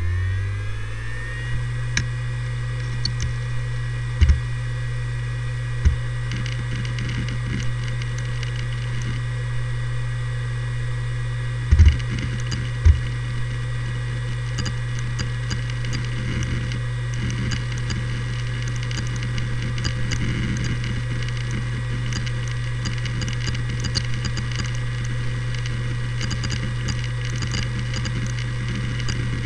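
Seagate Barracuda ES ST3250820NS 250GB hard drive finishing its spin-up, its whine rising to speed in the first second or so, then running with a steady hum while its heads seek with scattered clicks that grow busier as Windows loads. A few louder low thumps come about 4, 6, 12 and 13 seconds in. The odd clicking is normal for this drive series.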